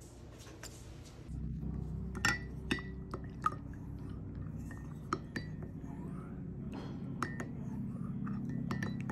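Wooden spoon stirring syrupy tea in a ceramic mug: irregular light clinks and knocks against the mug, several leaving a short ring, over a low steady hum.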